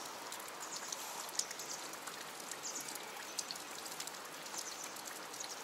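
Steady patter of water drops falling onto a pool's surface, like light rain, with brief sharper splashes every second or so.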